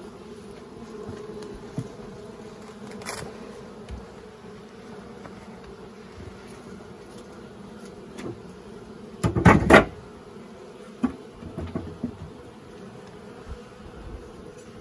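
Honeybees buzzing steadily around an open hive box, with a few small knocks and one louder clatter about nine and a half seconds in as the wooden hive parts are handled.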